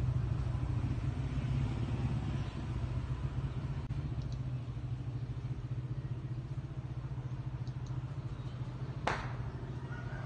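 Steady low mechanical rumble, with a single sharp click about nine seconds in.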